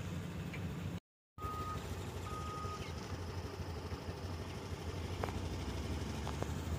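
Steady low engine rumble of a vehicle driving slowly along a dirt road. The sound drops out for a moment about a second in, and just after it come two short high beeps.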